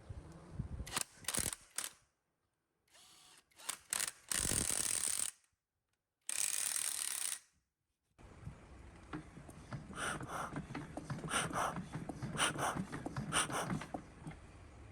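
Hand-tool work on metal engine parts: short bursts of scraping and clicking in several clips that cut off abruptly, then a run of repeated clicks and rasps in the second half.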